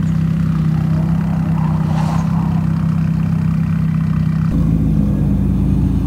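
Modified drift car engine idling steadily at low revs, its exhaust note changing about four and a half seconds in.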